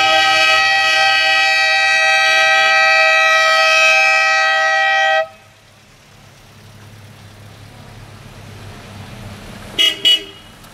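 Car horn held for about five seconds, then cut off abruptly. Quieter car engines run by in the gap, and two short horn toots follow near the end.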